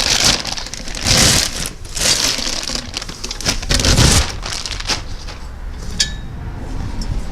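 Metal parts and tools clattering and scraping in uneven bursts, as an old exhaust header is worked off a Civic engine, then quieter with a single sharp click about six seconds in.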